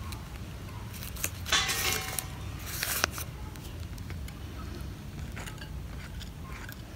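Light rustling and a few small clicks from a rice-paper fish roll being handled over a bowl of dipping sauce with a metal spoon in it, bunched in the first three seconds, over a low steady background rumble.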